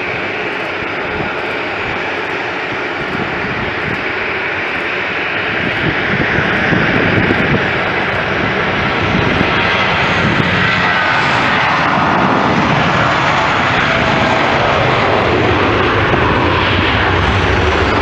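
Airbus A320-233's IAE V2500 turbofan engines at takeoff thrust as the jet accelerates past on its takeoff run and lifts off. The engine noise grows louder about six seconds in, with a falling pitch as it passes close, then stays loud.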